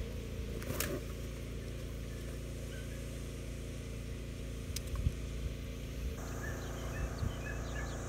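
Steady low engine drone, with a few faint knocks and, near the end, a few faint short chirps.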